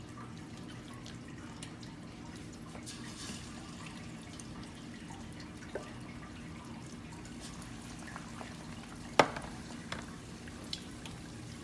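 Raw breaded chicken drumsticks going into a pot of hot cooking oil, with faint sizzling and crackling over a steady low hum. A few small clicks are scattered through it, and a single sharp knock comes about nine seconds in.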